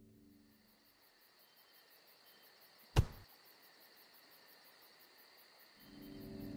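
Faint cricket-like chirping, evenly pulsed, over a thin steady high tone, broken by one sharp thump about three seconds in. Low droning ambient music swells back in near the end.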